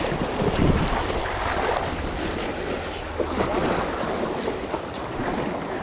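Steady wind noise on the microphone, with lake waves washing in.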